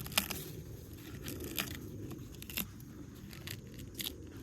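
Rotten, soft dead pine wood being broken and pulled apart by hand: quiet crunching and crackling with a handful of sharper cracks, the loudest just after the start.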